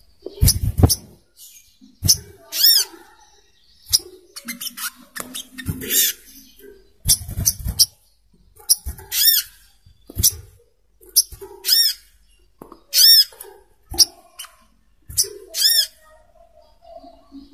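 Brown-throated sunbird (sogok ontong) calling: short, sharp, high calls repeated every one to two seconds, with a few faint knocks and rustles between them.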